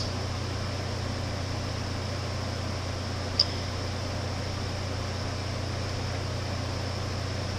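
Steady low hum with a light hiss of room tone, and one short faint tick about three and a half seconds in.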